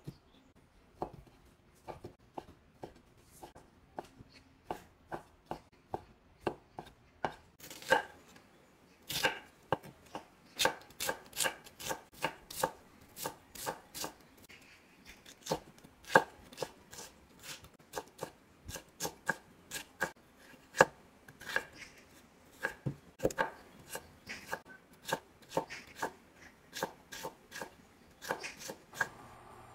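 Chef's knife dicing ham, onion and carrot on a wooden cutting board: a run of sharp knife strikes against the board. The strikes come sparsely at first, then quicken to about three a second from about eight seconds in.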